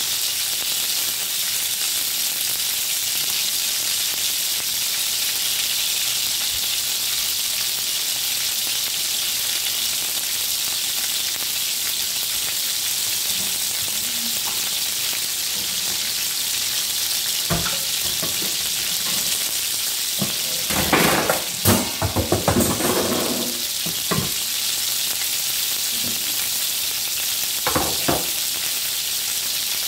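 Chicken breasts frying in a cast-iron grill pan, a steady high sizzle. A cluster of knocks and clatter comes about two-thirds through, the loudest moment, with a few more knocks before it and near the end.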